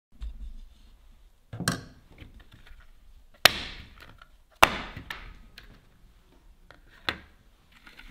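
A plastic chocolate-bar mould filled with liquid chocolate knocked down onto a wooden table, four sharp knocks at uneven intervals, the two in the middle loudest. The tapping drives air bubbles out of the tempered chocolate and settles it into the corners of the mould.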